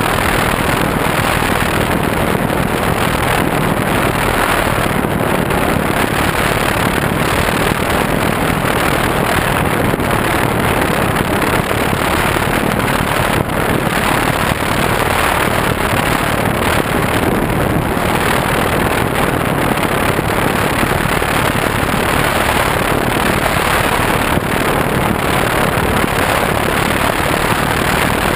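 Steady rush of wind and propeller noise from a Multiplex FunCub RC plane in cruising flight, its electric motor running, heard through the microphone of a camera mounted on the plane's canopy.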